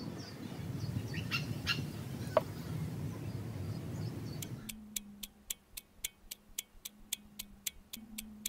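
Birds chirping over a low outdoor hum. About four and a half seconds in, the outdoor sound cuts off and an even ticking begins, about four ticks a second, over a faint low tone.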